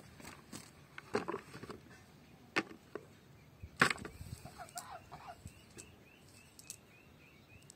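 Scattered sharp knocks and rustles from handling a cast net and freshly caught fish beside a small metal bucket, the loudest knock a little under four seconds in.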